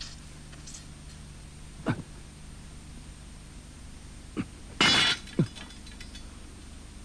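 A metal knife blade clatters onto hard ground about five seconds in, a brief bright clinking that rings for a moment. A couple of short sharp sounds come before it, over a steady low hum.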